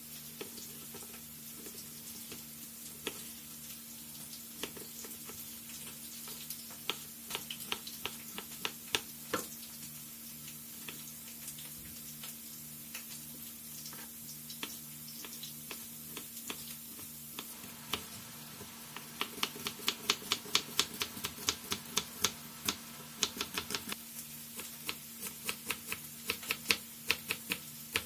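Kitchen knife cutting vegetables on a wooden cutting board: scattered sharp knocks as cucumber and tomato are sliced, then a fast run of knocks, several a second, from about two-thirds of the way in as cilantro is chopped. A faint steady hum lies underneath.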